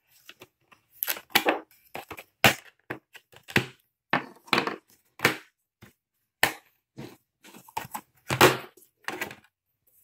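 The snap-in clips of a Dell Inspiron 11 3000 2-in-1 laptop's bottom cover popping loose as the cover is pried off. It makes a series of sharp clicks and cracks, about a dozen, irregularly spaced.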